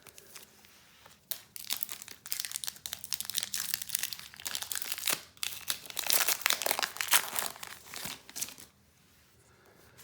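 Foil wrapper of a Pokémon TCG booster pack crinkling and crackling as it is torn open and handled, for about seven seconds before it falls quiet near the end.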